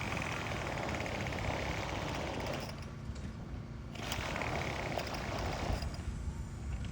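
Small two-stroke weed eater engine driving the kayak, running in two bursts of a few seconds each with a pause between.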